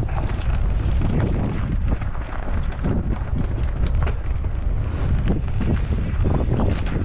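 Wind buffeting the microphone and tyres rumbling over a dirt trail as a Pivot Shuttle LT electric mountain bike descends, with frequent sharp knocks and rattles from the bike jolting over roots and rocks.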